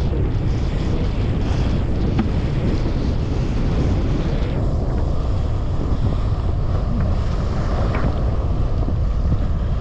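Steady wind rumble buffeting an action camera's microphone while wingfoiling at speed, with a hiss of water rushing and spraying past the board.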